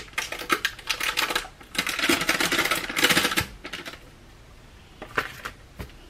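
Crinkling and clicking as two sticks of softened butter are emptied from their wrappers into a mixing bowl with sugar: a dense run of crackles for about three and a half seconds, then a few separate clicks near the end.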